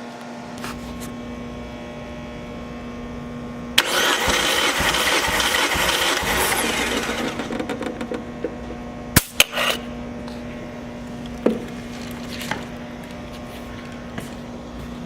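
Mazda BP 1.8L four-cylinder engine spun on its starter for a compression test: cranking starts about four seconds in, runs for about three and a half seconds and winds down, followed a little later by a few sharp clicks.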